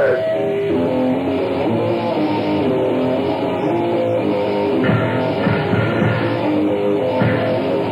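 Music from a grindcore/hardcore tape: an electric guitar riff moving through changing notes, with no vocals.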